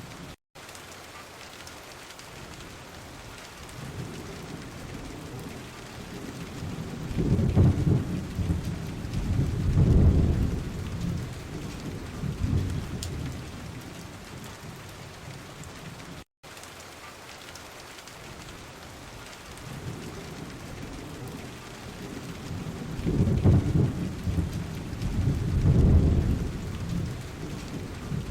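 Steady heavy rain with thunder rolling in twice, each time a deep rumble swelling and fading over a few seconds. The sound cuts out briefly twice.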